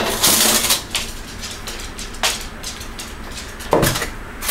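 Metal baking pan being pulled out of an oven with a tea towel and set down: metal scraping and clattering, with a sharper knock near the end.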